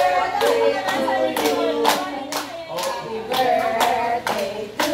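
Group of people singing together with steady hand claps in time, about two claps a second.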